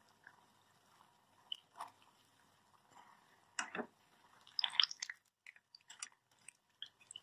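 Hot oil crackling with scattered pops around pastry pocket snacks deep-frying until light golden.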